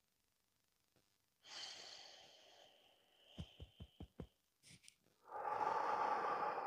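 A slow breath, then five quick fingertip taps on the collarbone close to a clip-on microphone, then a long, loud breath near the end.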